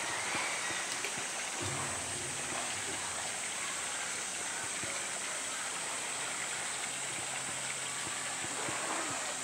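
Steady rush of running water in a polar bear's pool enclosure, with a faint low hum coming in about two seconds in.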